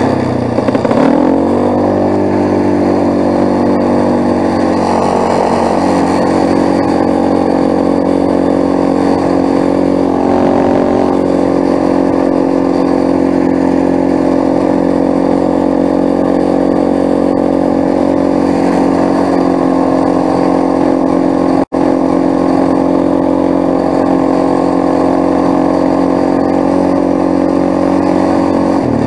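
Quad bike (ATV) engine running at a steady pace over snow, easing off and picking back up about a second in. The sound drops out for a split second about two-thirds through.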